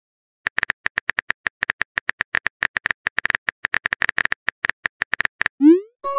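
Phone keyboard typing sound effect from a texting app: a quick run of identical short clicks, about nine a second, one per letter typed. Near the end comes a short rising swoosh as the message is sent.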